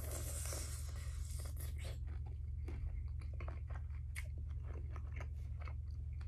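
Close-miked chewing of cooked shrimp, with many small wet mouth clicks throughout and a soft hiss in the first two seconds, over a steady low hum.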